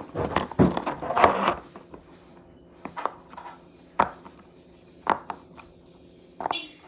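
Silicone Pop-It fidget toy being pressed, its bubbles popping: a quick flurry of pops, then single pops about once a second.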